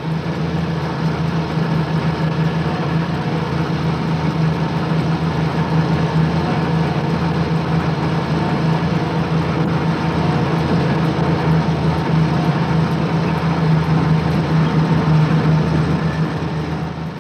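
Heavy vehicle engine running steadily at idle, with a strong low hum. It stops just at the end.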